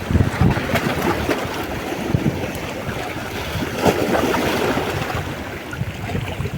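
Wind buffeting the microphone over the steady wash of sea waves, with gusts of low rumble near the start.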